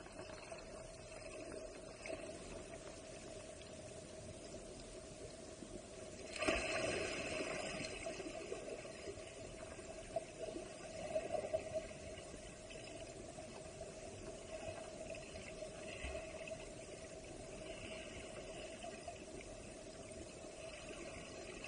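Muffled rush of moving creek water heard through a submerged camera, with a steady hum running under it. The rush grows suddenly louder about six seconds in, then wavers.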